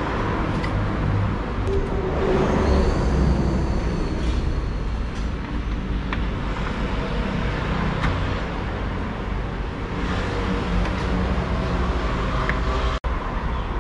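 Steady low rumble of road traffic with a few faint light clicks, cut by a sudden brief dropout near the end.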